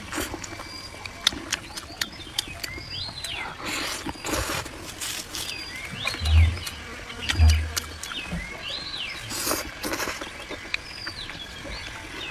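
Eating sounds of spicy noodles with pork belly: slurps, smacking and chewing clicks, with two low thumps around the middle. In the background a creature's short call rising and falling in pitch repeats about every two seconds.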